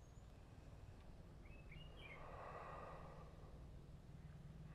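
Near silence: faint outdoor background noise, with a brief run of faint bird chirps about two seconds in.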